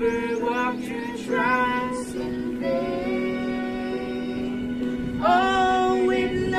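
Music: a woman singing a song over a steady, held accompaniment.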